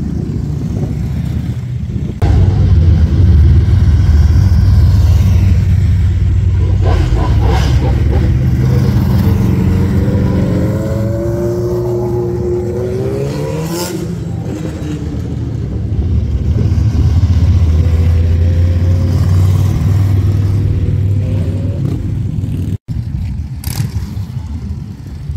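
Cruiser motorcycle engines running loud as bikes ride past. About ten seconds in, one engine revs up with a rising pitch, and the engine sound swells again a few seconds later.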